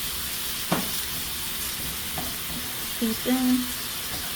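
Chopped onion and minced garlic sizzling steadily as they sauté in a pan of sausage and bacon fat.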